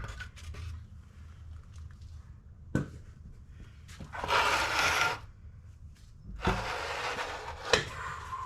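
Work noise of things being moved and handled: two long scrapes, about a second each, with a sharp knock before them and another near the end.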